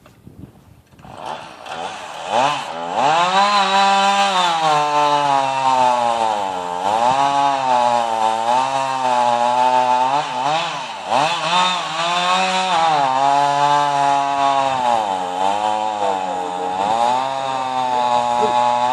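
Chainsaw starts running about a second in and keeps going, its engine pitch rising and falling repeatedly as it saws into a tree.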